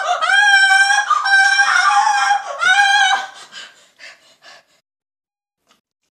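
A child's high-pitched wordless voice, drawn out in several long held notes for about three seconds, then a few faint short knocks.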